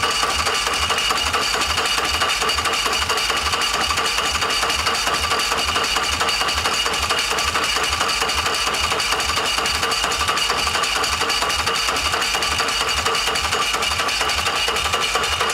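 Electric starter motor cranking a 113-cubic-inch V-twin motorcycle engine nonstop with the plug wires off, so the engine turns over without firing. A steady starter whine runs over a fast, even chug of compression strokes. The starter is hot after about three minutes of continuous cranking.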